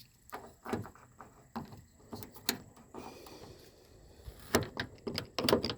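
Irregular clicks and knocks of a car door lock cylinder being worked back into its opening in the door by hand, plastic and metal parts tapping together, with the loudest knocks near the end.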